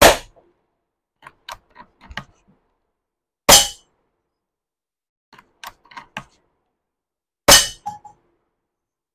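Snowpeak P35 bull-pup PCP air rifle firing three shots about four seconds apart, each a sharp crack with a brief ring. Between shots come quick clusters of small metallic clicks as the side lever is cycled to cock it and chamber the next pellet.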